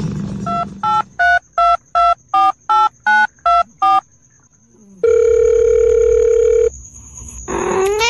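Telephone keypad tones: about ten quick two-tone beeps in a steady rhythm as a number is dialed. After a short pause comes one long steady tone lasting about a second and a half.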